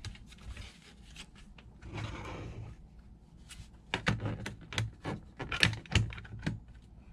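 Sharp clicks and knocks of 3D-printed plastic airsoft gun parts being handled and fitted together: a brief scrape about two seconds in, then a quick run of clicks and knocks as the top cover is pressed back onto the body.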